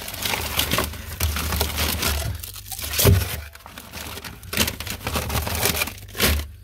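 Plastic-wrapped packs of frozen bait crinkling and knocking together as they are handled and moved about, with a louder knock about three seconds in and another near the end.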